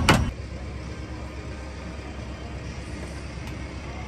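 Steady low mechanical hum, strongest in the bass, with no distinct knocks, clicks or tool sounds.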